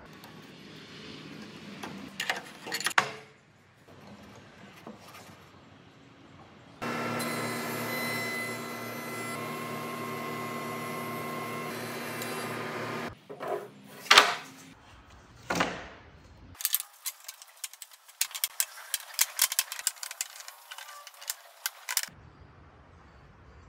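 Router table with a tongue-and-groove cutter running steadily for about six seconds, then a series of sharp knocks and wooden clacks as boards are handled and knocked together.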